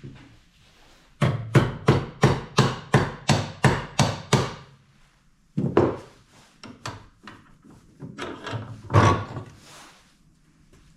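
Hand tool being worked back and forth in strokes: about a dozen steady strokes at roughly three a second, then a pause and slower, uneven strokes.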